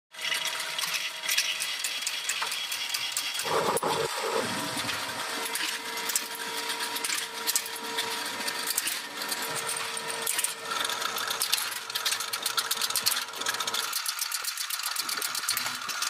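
Forging-shop machinery running, with dense, rapid metallic clicking and clinking of steel parts, and a steady tone through the middle that stops a couple of seconds before the end.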